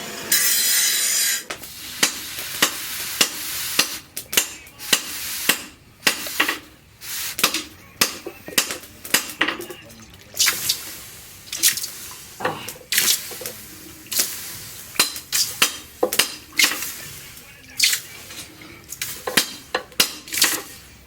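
A rasping, filing-like sound stops about a second and a half in. Then come irregular light metal taps and clinks, roughly one or two a second, some with a short ring: hand tools working metal in a blacksmith's shop.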